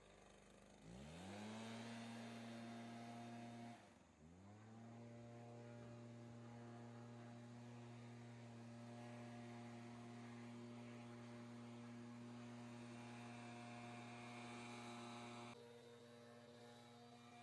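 A faint small motor spins up quickly to a steady, even pitch. It cuts out briefly about four seconds in, spins up again, and runs steadily, its sound changing near the end.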